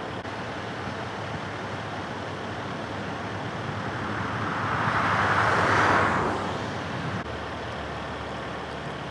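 Steady freeway traffic noise with a low rumble. One vehicle passes by, its tyre hiss swelling to a peak about six seconds in and then fading.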